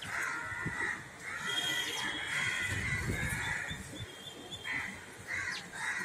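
Crows cawing repeatedly: a long run of caws in the first half and a few short separate caws near the end.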